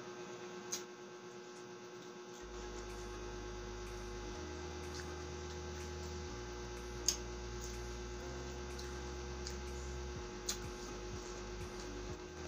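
Steady hum of an electric fan running, with a few short clicks about a second in, in the middle and near the end.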